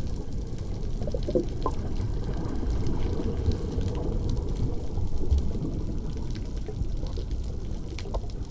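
Sea water sloshing and gurgling over a steady low rumble, with scattered small clicks.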